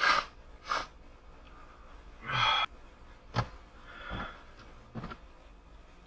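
A man's sneezing fit: about six gasping intakes of breath and sharp, explosive sneezes in quick succession.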